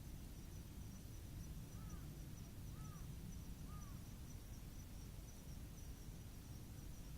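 Faint outdoor ambience: an insect chirping steadily in a fast, high pulse over a low rumble, with three short, arching calls from a bird about two to four seconds in.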